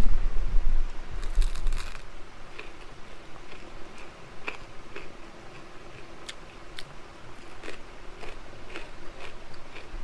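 A person biting into and chewing a crunchy fried snack: a burst of crunching about a second in, then scattered crunches as he chews.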